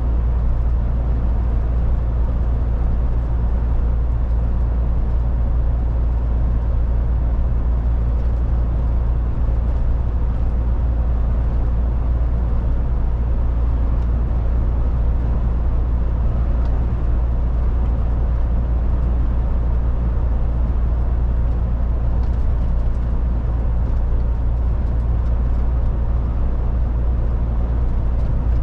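MAN TGX 18.440 truck on the move: its diesel engine and the road noise make a steady low drone that doesn't rise or fall.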